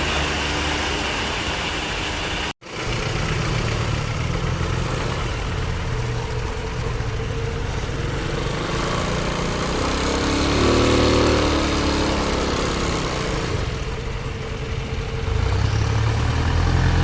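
Excavator diesel engine running steadily, a low hum under a continuous hiss, with a brief moment of silence about two and a half seconds in and a short swell in its note around the middle.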